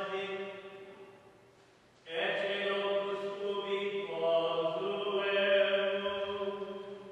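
Latin Gregorian chant sung by male voices, with long held notes. The singing fades away within the first two seconds, then starts again and carries on through the rest.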